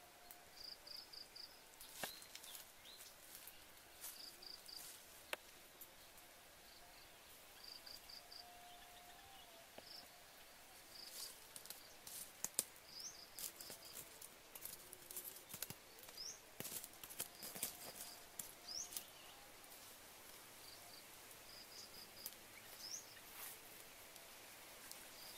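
Faint outdoor ambience: a small bird or insect calling in short, high, repeated chirps in groups of three or four, every second or two, with scattered soft clicks and crackles.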